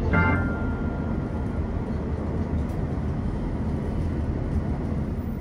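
Steady running noise of a vehicle in motion, a low rumble with hiss over it. A brief tone sounds at the very start.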